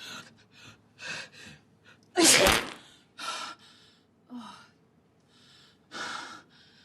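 A woman sneezing: a few short gasping in-breaths build up to one loud sneeze about two seconds in, followed by several breathy gasps.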